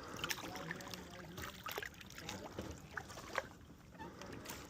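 Faint water sounds of a canoe being paddled: small drips, splashes and light clicks from the paddle and water around the hull.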